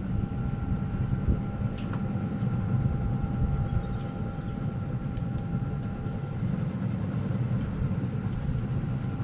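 Pit Boss pellet smoker running, with its fan giving a steady low hum and a faint, even high whine. A few light clicks are heard.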